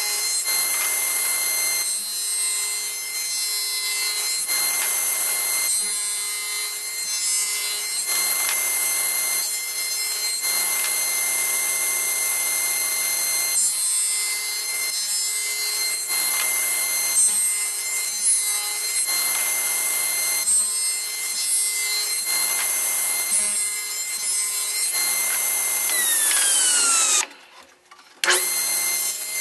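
Table saw running with its blade nibbling a slot into a wooden lantern frame in repeated passes, the cut growing louder and softer every second or two over a steady motor whine. Near the end the whine falls in pitch and the sound cuts out for about a second.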